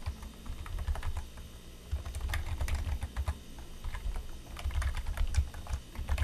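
Computer keyboard typing in several short bursts with brief pauses between them, the keys clicking as a name and an email address are entered.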